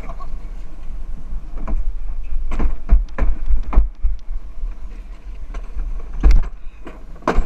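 Gravity luge cart rolling fast down a concrete track: a steady low rumble from the wheels and wind on the microphone, with several sharp knocks as the cart jolts over the track.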